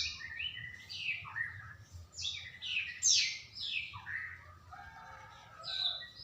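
A young male black-throated canary (blackthroat) singing a rapid, varied warble of quick downslurred notes. Near the end it adds a short high note.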